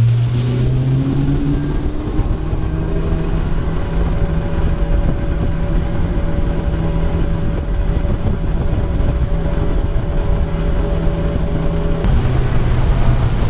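Fishing boat's engine running under way, rising in pitch over the first couple of seconds as it speeds up and then holding steady, with water and wind noise. About twelve seconds in the pitch drops as the throttle comes back.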